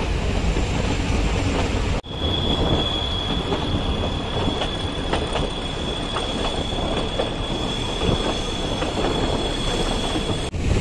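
Nilgiri toy train running on its rails, steady rumble with rail-joint clicks. About two seconds in, a single high steady wheel squeal starts and holds until just before the end.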